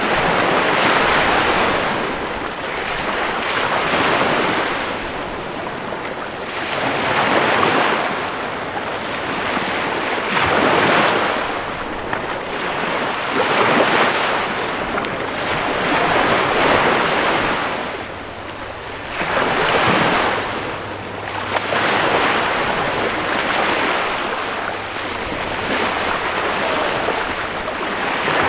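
Small waves on a sandy bay beach breaking and washing up the shore, a fresh surge of surf about every three seconds.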